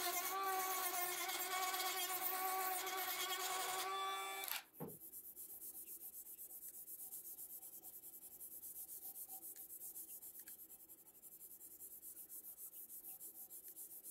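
A small rotary tool with a sanding drum whines steadily as it grinds a micarta knife handle, then stops abruptly about five seconds in. After that a strip of abrasive cloth rubs back and forth over the handle by hand, in quieter, even strokes a few times a second.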